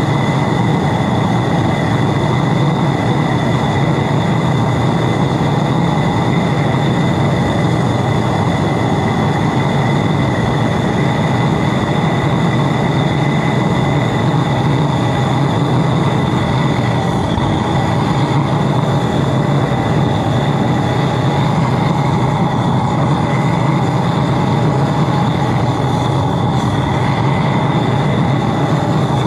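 High-velocity diesel burner firing into a small foundry: a loud, steady roar with a constant high whistle running through it.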